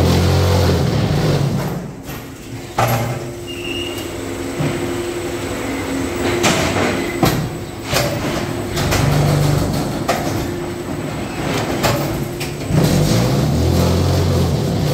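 TPM10000G concrete block machine running through its moulding cycle. A loud low vibration hum from the mould compacting the concrete comes at the start and again near the end, with metal clanks in between as the mould and tamper head move and pallets shift.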